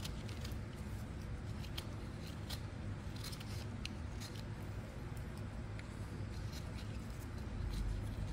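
Carving knife whittling a yellow pine stick: a quick, irregular series of short slicing and scraping cuts as the blade takes shavings off to taper the stick toward a point.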